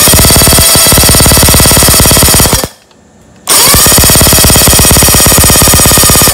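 A 1973 Johnson 25 hp outboard's electric starter cranking in two bursts of about two and a half seconds each, with the spark tester's gaps snapping rapidly. The snapping means both cylinders now fire, after a pitted new set of breaker points was replaced.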